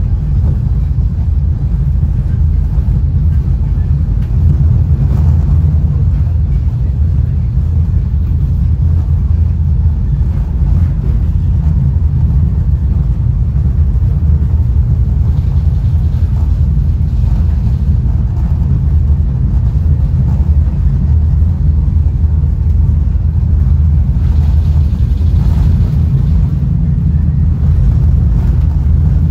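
Steady low rumble of a diesel-hauled Caltrain Gallery bilevel coach running at speed along the track, heard from inside the car.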